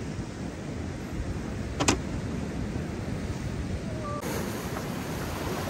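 Sea surf washing against shore rocks, with wind buffeting the microphone: a steady low rush. One sharp click comes about two seconds in.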